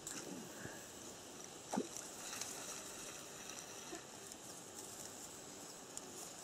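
Faint outdoor ambience of a reedy lake shore: a soft steady hiss with small scattered natural sounds, and one brief, slightly louder sound a little under two seconds in.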